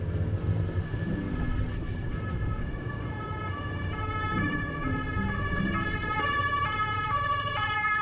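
Background music, a melody of short stepping notes, over a low rumble.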